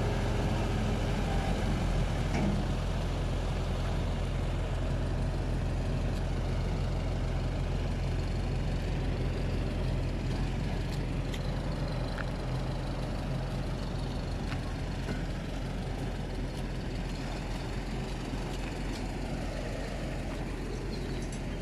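Flatbed tow truck's engine running steadily as the truck drives off, its drone growing slowly fainter.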